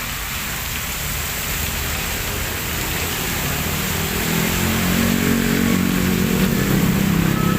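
Heavy rain falling steadily. About halfway through, a motor vehicle's engine comes in over the rain and grows louder toward the end as it passes.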